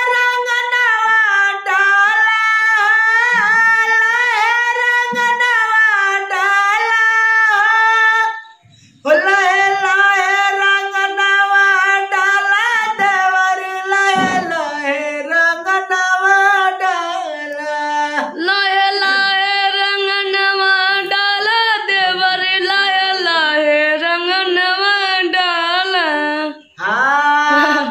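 A high singing voice with no accompaniment drawing out long, wavering notes of a Holi folk song, pausing for breath about eight seconds in and again near the end.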